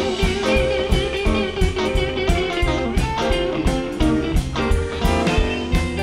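Live blues band playing an instrumental: electric guitars over upright bass and drums, with a steady beat of drum hits.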